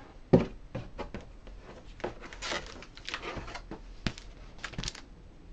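Cardboard shipping box and paper packing handled by hand: a scattered string of short knocks and taps, with brief patches of rustling.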